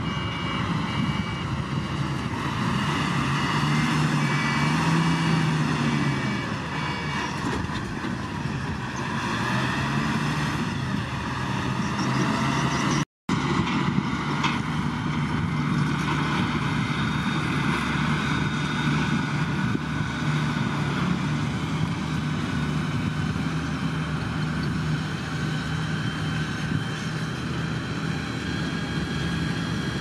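Small Komatsu crawler bulldozer's diesel engine running steadily under load as it pushes dirt. A reversing alarm beeps at an even pace through the first several seconds. The sound cuts out for a moment about 13 seconds in.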